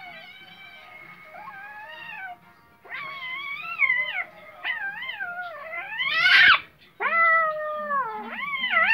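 Kitten meowing over and over while an adult cat play-fights with it: high cries that rise and fall in pitch. The calls are fainter for the first two seconds, and the loudest is a rising squeal about six seconds in.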